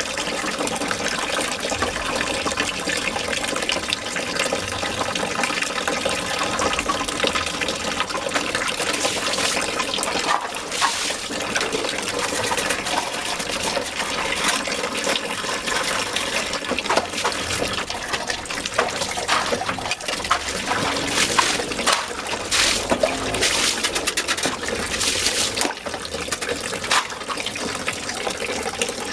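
Running water splashing steadily, with many small irregular splashes and knocks.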